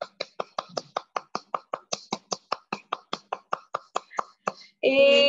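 A fast, even run of short percussive taps, about five or six a second, that stops shortly before a loud held musical tone comes in near the end.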